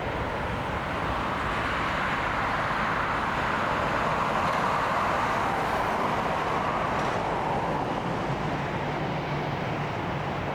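Jet airliner's engines, a steady rushing noise that swells to a peak about halfway through and then eases off as the aircraft passes.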